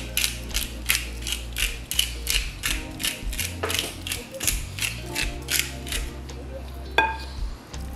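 Pepper grinder being twisted over a bowl of raw chicken, a steady run of crunching ratchet clicks at about four to five a second as it grinds black pepper, with one sharper clink about seven seconds in.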